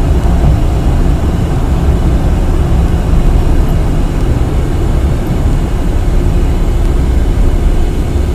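Steady low rumble of engine and road noise inside the cabin of a passenger van driving along a road.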